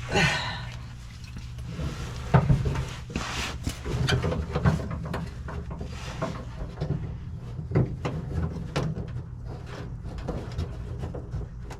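Irregular clicks, knocks and rubbing of a small LED light and its hardware being handled and worked back into its mounting hole in a truck's rear bumper, with one sharper knock about two seconds in.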